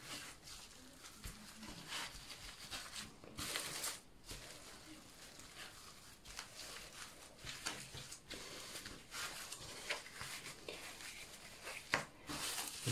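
Plastic cling film crinkling and rustling in irregular bursts as hands roll fish fillets up in it tightly on a wooden cutting board.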